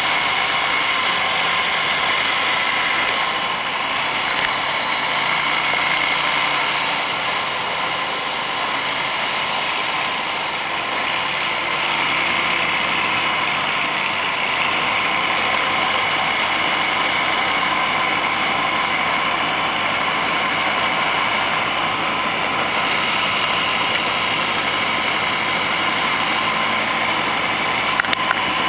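Boat engine running steadily at speed on open water: a continuous, even engine drone over rushing noise.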